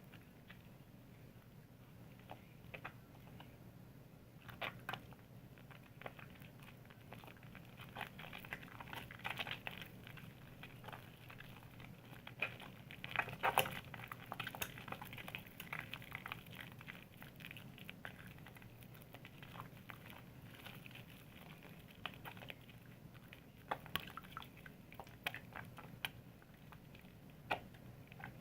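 Soap being lathered: irregular wet crackling, squishing and clicking, busiest and loudest around the middle, over a faint steady low hum.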